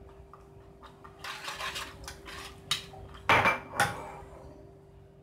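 Wooden spoon stirring peanuts in salted water in a small steel saucepan, with light clicks and scrapes against the pan, then two louder knocks about three and a half seconds in.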